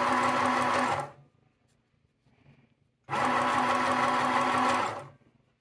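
Small Janome New Home travel sewing machine stitching at its single fixed speed, a steady motor hum with the needle running. It stops about a second in and starts again about two seconds later for another short run.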